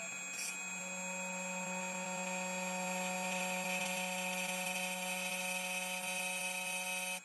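Tank 2 Pro key machine's cutter motor running steadily with a constant hum and whine while it cuts a dimple key blank, the hiss swelling a little midway, then stopping suddenly near the end.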